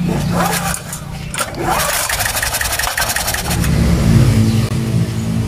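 Small generator engine being cranked over and catching, then running steadily about three and a half seconds in, on a generator being repaired for hard starting.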